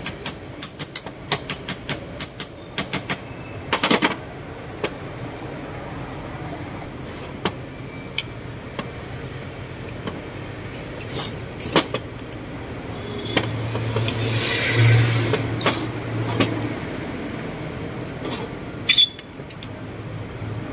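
Ball-peen hammer tapping on a turbocharger's metal housing, a quick run of light metallic knocks over the first few seconds, then a few single clinks of parts being handled. A low hum swells and fades around the middle.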